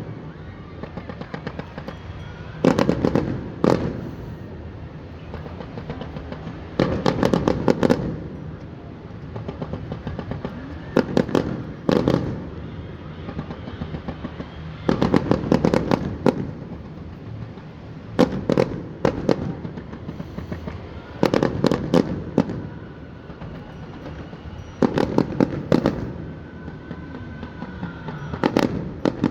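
Fireworks display: a burst of several sharp bangs and crackles about every three to four seconds, eight bursts in all, with a steady background rumble between them.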